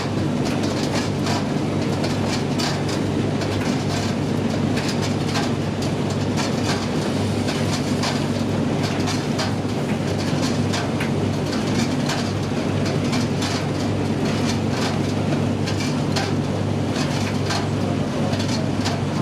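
Gas tumble dryer running with its gas burner lit: a steady motor and drum hum with irregular knocks and clatter from the load tumbling in the drum.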